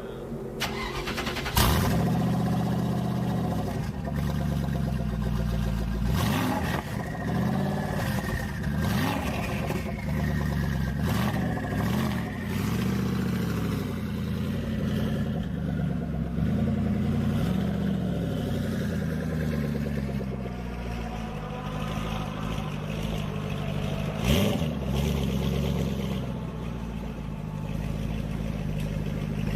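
Gumpert Apollo Sport's twin-turbo V8 running, coming in loudly about a second and a half in, then revving up and down repeatedly. One sharp crack near the end.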